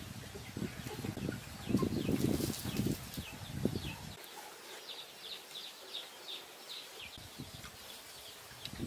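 Small birds chirping in quick runs of short, falling notes. For the first four seconds low muffled sounds lie under them and then stop abruptly.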